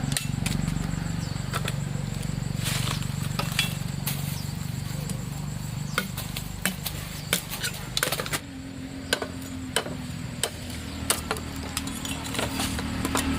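A small engine running steadily, its pitch shifting about eight seconds in, with scattered clicks and knocks over it.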